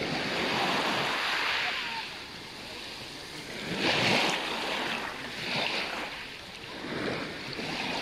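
Calm sea water lapping and splashing around people wading, with wind blowing on the microphone. The water noise comes in surges, the loudest about four seconds in.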